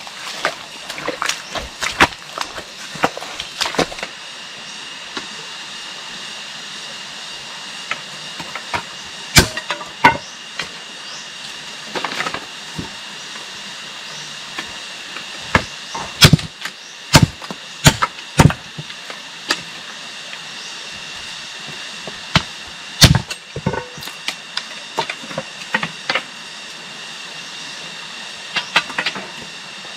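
Scattered sharp knocks and thumps from hand work with tools and building materials, irregular and in clusters, over a steady high-pitched hiss.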